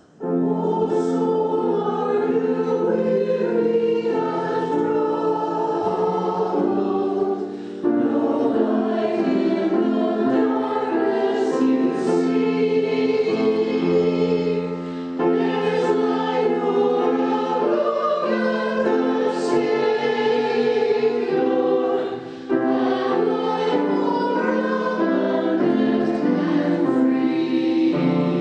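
Church choir of mixed voices singing, coming in right at the start and carrying on in long phrases with brief breaks for breath about every seven or eight seconds.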